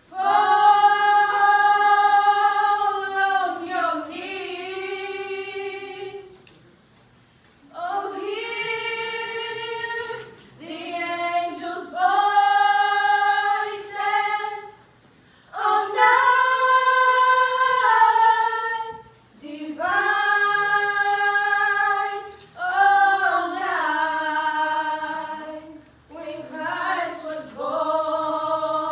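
A small group of girls singing a cappella in harmony, in held phrases of a few seconds with short breaths between them.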